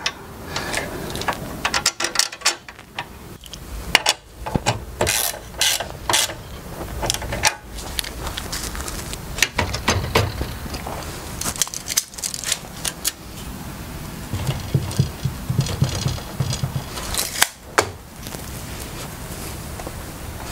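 Hitachi C12FDH miter saw being lifted and set onto the metal mounting brackets of a DeWalt DWX723 miter saw stand. It makes an irregular string of metal clicks, clanks and knocks as the saw is fitted and seated.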